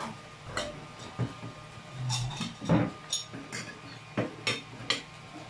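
Dishes, a glass pitcher and cutlery clinking and knocking as they are set down and moved on a table, about ten short sharp knocks, the loudest near the middle.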